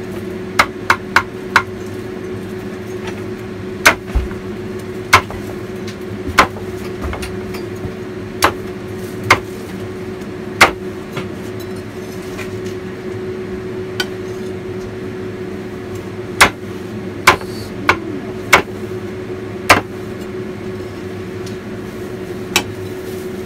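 Meat cleaver chopping roast lechon, its crackling skin and bones, on a round wooden chopping block: a string of sharp, irregularly spaced chops, some in quick clusters, over a steady low hum.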